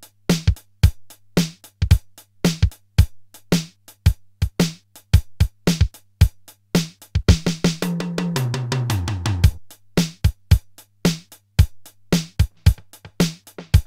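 Roland TR-626 drum machine playing a beat of sampled kick, snare and hi-hat hits, with a quick roll down the toms, falling in pitch, a little past halfway. A faint low hum sits underneath.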